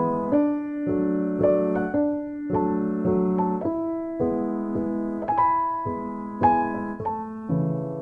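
Background piano music: a slow melody of ringing notes over held chords.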